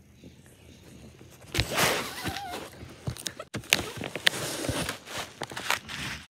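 Rustling, scraping and sharp knocks of dogs' bodies and bedding rubbing against a phone's microphone, starting about a second and a half in, with a brief wavering squeak soon after.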